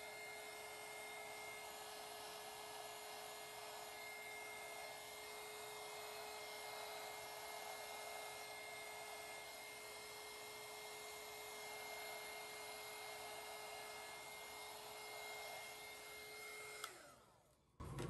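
Electric heat gun blowing steadily over wet epoxy resin, its fan giving a steady whirring hum. Near the end it is switched off and the fan winds down.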